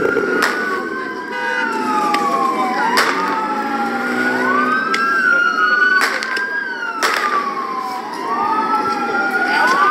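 Two or more police car sirens wailing out of step, their slow rising and falling sweeps overlapping. A few sharp pops cut through, about a second in and again around three, six, seven and ten seconds.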